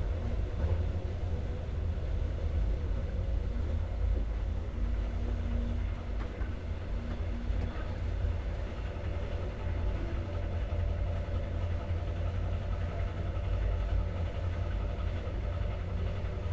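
Steady low rumble and hum of an Alex regional train, heard aboard, with no marked change in level.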